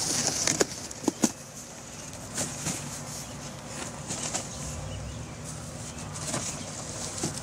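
Small fireworks going off: a fizzing hiss in the first second, a few sharp cracks about a second in, then scattered quieter pops.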